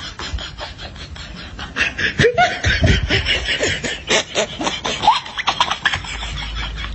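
A person laughing in quick, choppy bursts, starting about two seconds in and running for about four seconds.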